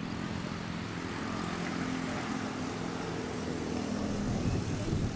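Steady engine drone with a low hum, getting a little louder near the end.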